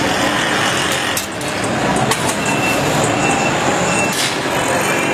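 Loud, steady street traffic noise, a dense rumble with scattered clicks and a few short high tones.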